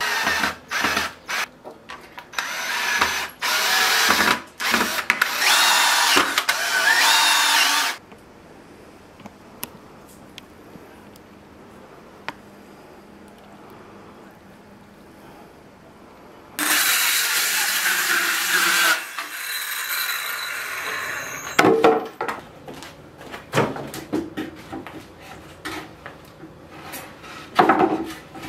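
Power drill running in several short bursts, a few seconds each, then a quiet stretch and one more burst of a couple of seconds. Scattered knocks and clatter follow near the end.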